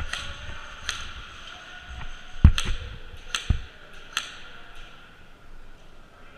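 Airsoft guns firing: about eight sharp single cracks at irregular intervals over the first five seconds, with two heavier thumps about two and a half and three and a half seconds in.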